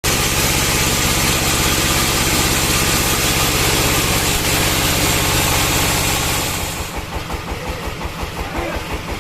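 Band sawmill cutting a gmelina log: a loud hiss of the blade through the wood over the running engine, which stops about seven seconds in and leaves the engine running on its own with an even pulsing beat.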